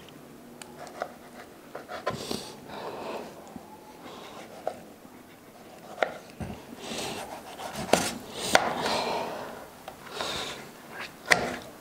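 Kitchen knife slicing tomatoes on a plastic cutting board: scattered knocks of the blade on the board, with heavy, panting breaths in between, heaviest in the second half.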